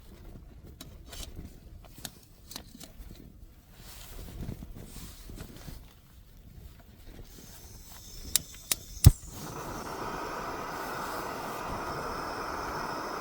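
Camping gas stove being lit: quiet rustling as it is handled, then three sharp clicks of the igniter, the last the loudest, and the burner catches about nine seconds in and runs with a steady hiss.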